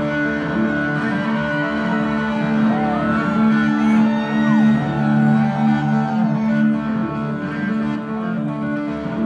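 Live band playing an instrumental passage: electric guitar notes that bend up and down over sustained chords.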